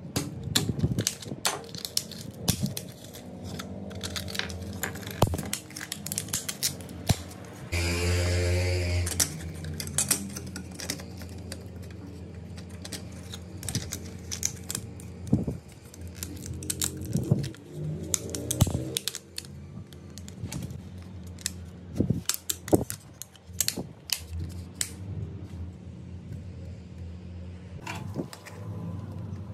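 Small plastic clicks, taps and scrapes as a cassette tape's plastic shell is pried at and handled with a small screwdriver, over a steady low hum. About eight seconds in, a louder humming sound comes in for a second or so.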